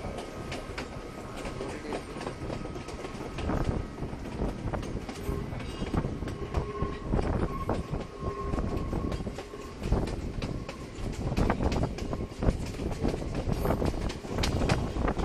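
Passenger train running on the track, heard from a carriage window: a steady rumble with irregular clattering knocks from the wheels and couplings.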